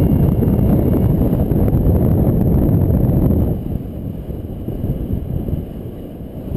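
Airflow buffeting the microphone of a paraglider pilot's camera in flight: a loud low rumble that eases about three and a half seconds in and swells again at the end.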